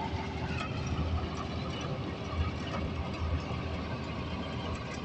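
Preet 987 4x4 combine harvester's diesel engine running steadily with a deep low rumble and a faint steady hum above it.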